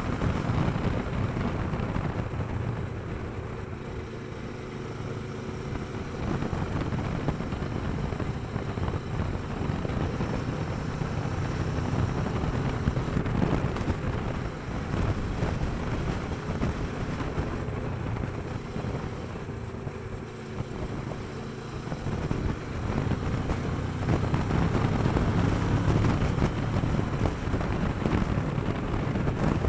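Kawasaki Versys 650's parallel-twin engine running on the move, with wind rushing over the microphone. It grows louder for the last several seconds.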